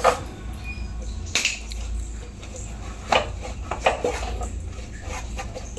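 Scattered sharp clicks and light knocks, about six at irregular intervals, as the metal fittings and tools of a gas hob top are handled during repair, over a low steady hum.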